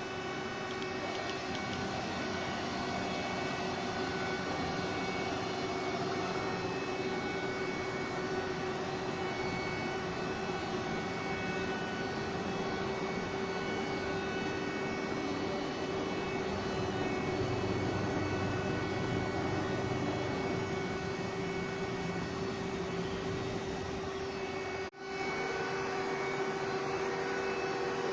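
VTEC NF-8239 double column machining center running under power: a steady mechanical hum with a constant mid-pitched tone and fainter higher tones over a noisy background. It breaks off for a moment about 25 seconds in, then resumes unchanged.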